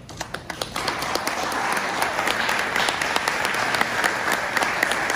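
Wedding guests applauding the kiss: a few scattered claps that swell within about a second into full, steady applause.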